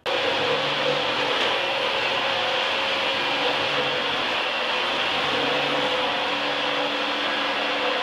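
Upright vacuum cleaner running steadily, a loud even motor-and-airflow noise that switches on abruptly at the start.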